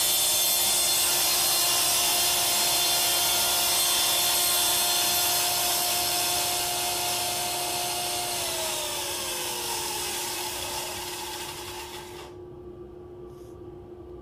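Table saw ripping a stopped cut into a Formica-faced cupboard-door panel, the blade running at steady speed. About eight seconds in, the saw is switched off and winds down with a falling pitch. The noise cuts off suddenly near the end, leaving a steady hum.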